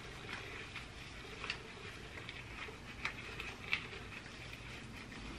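Gloved hands working hair dye into a loc: faint scattered sticky clicks and rustles over a low steady room hum.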